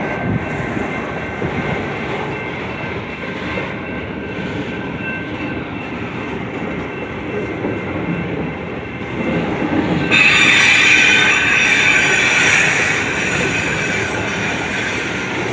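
A long train rolling past, its wheels rumbling on the rails with thin high squeals. About ten seconds in, a louder, higher-pitched wheel squeal sets in suddenly and carries on.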